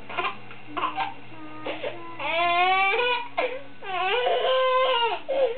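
A baby's voice: three short, sharp sounds about a second apart, then two long, high, wavering wails.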